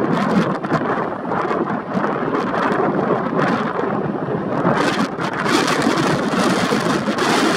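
Boeing 777-200 airliner landing: a steady jet rumble and roar as it touches down and rolls out along the runway, growing brighter and hissier about five seconds in.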